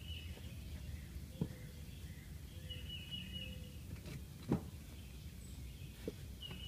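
Outdoor background noise with a steady low rumble, and a bird chirping a short call about every three seconds. A few faint knocks, the loudest about four and a half seconds in.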